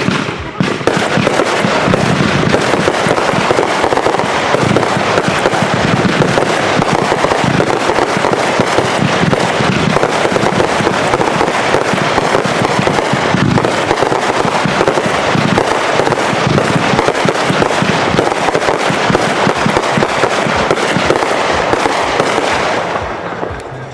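Consumer fireworks going off in a dense, continuous barrage of bursts and crackling, with no gaps between the reports. It dies away about a second before the end.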